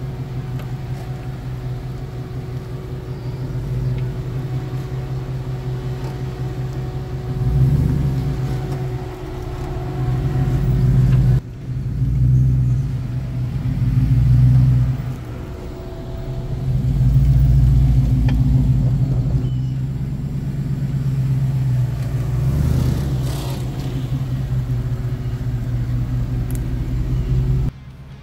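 The swapped-in 5.3 V8 of a 1988 Toyota FJ62 Land Cruiser running with a low rumble. It is revved up and eased back down several times, and the sound breaks off abruptly about eleven seconds in and again near the end.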